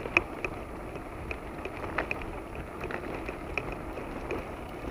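Car driving on an unpaved dirt road: steady tyre and road noise with irregular small clicks and ticks from gravel and stones under the wheels, one sharper click just after the start.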